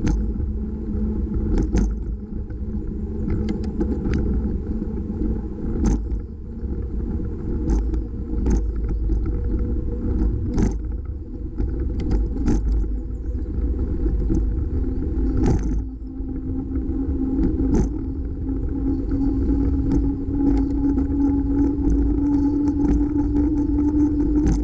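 Wind and road rumble on a handlebar-mounted camera as a bicycle rolls along a paved street, broken by sharp clicks and rattles as the mount jolts over bumps. A low hum rises slowly in pitch over the last several seconds.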